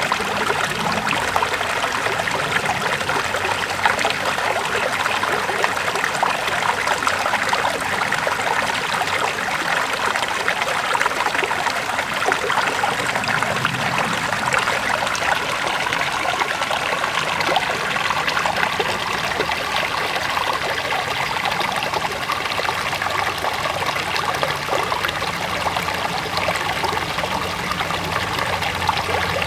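River water flowing and trickling over rocks, a steady babbling rush with fine splashing detail.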